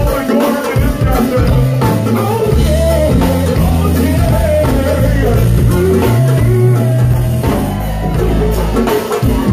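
Loud music with a deep, held bass line, and a man performing vocals into a microphone over it.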